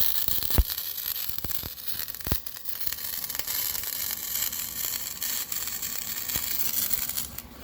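Flux-core MIG welder arc laying a bead on old steel exhaust pipe: a steady crackling sizzle with scattered sharp pops, which cuts off suddenly at the very end.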